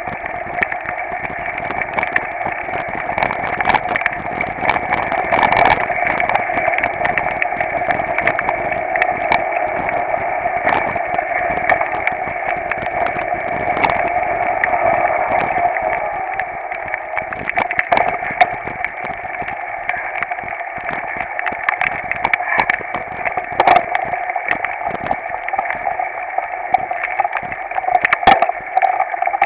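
Mountain bike riding over a wet, rough dirt trail, heard through a handlebar-mounted camera: a steady muffled rush of wind and tyre noise with frequent knocks and rattles from the bumps.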